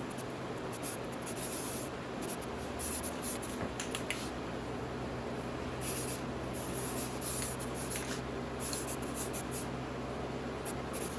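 Aerosol spray-paint can hissing in short, irregular bursts over the steady hum of a running fan.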